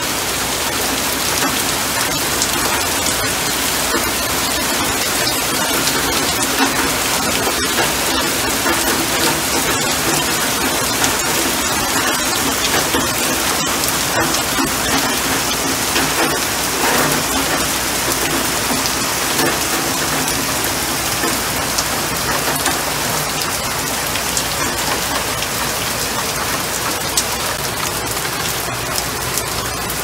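Steady rain falling on leafy shrubs and wet pavement: an even hiss dotted with many small drop ticks.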